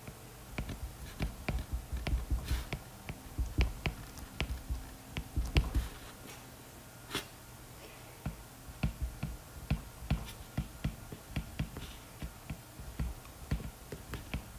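Stylus tapping and scraping on a tablet screen while handwriting: irregular sharp ticks, several a second, with a brief lull about two-thirds of the way through.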